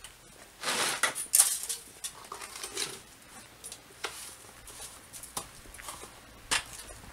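Hand plastering: a trowel scraping plaster from a tub and spreading it on a wall, with a longer scrape about a second in, then scattered sharp taps and clinks of the tool against the tub.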